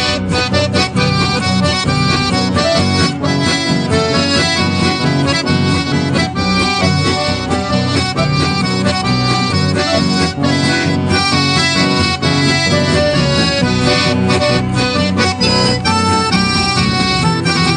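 Accordion-led instrumental folk dance music with guitar and bass, played at a steady beat.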